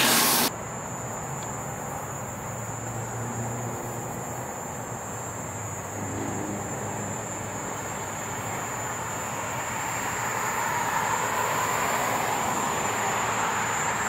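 Outdoor night ambience: a steady bed of distant vehicle noise that swells gradually from about ten seconds in, under a constant high whine. A loud burst of noise at the very start cuts off after half a second.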